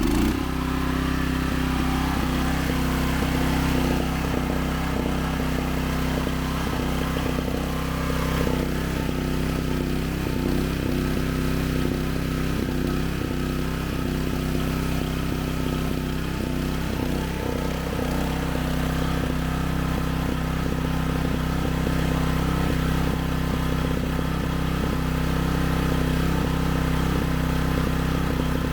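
Magnum 4000 Gold hot water pressure washer's engine running loudly at a steady speed, just after being started.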